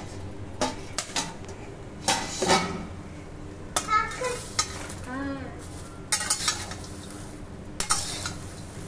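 Popcorn popping in a steel pan, with scattered sharp pops and metal clinks from the pan and its lid over a faint sizzle.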